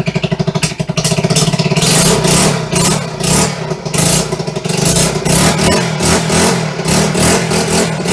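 1974 Honda XR75's small single-cylinder four-stroke engine running, at first with a steady rapid putter, then revved up and down repeatedly from about two seconds in.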